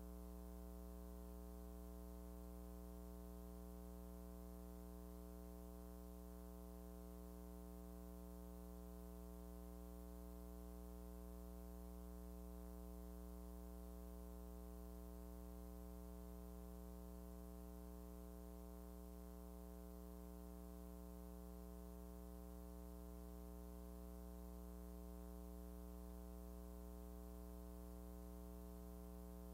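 Faint, steady low electrical hum with evenly spaced overtones and nothing else, unchanging throughout.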